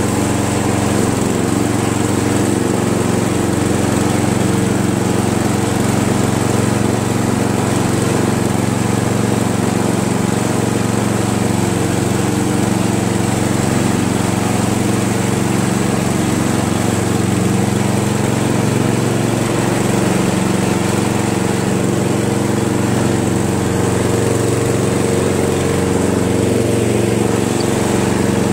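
Craftsman 13.5 hp rear-engine riding mower's small gasoline engine running steadily, shortly after a cold start on choke.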